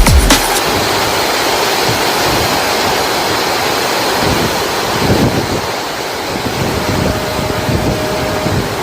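Heavy rain pouring down steadily in a dense hiss, with uneven low rumbles of wind on the microphone.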